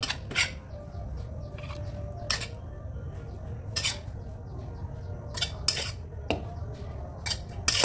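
A metal spatula clinks and scrapes against a ceramic plate as stir-fried shellfish is served onto it. There are sharp, irregular clinks every second or two over a low, steady rumble.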